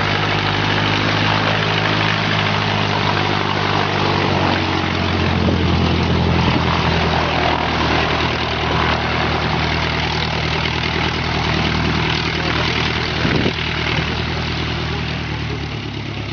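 De Havilland Tiger Moth biplane's inverted four-cylinder engine and propeller running at low power as it taxis past. The sound fades as the plane moves away near the end.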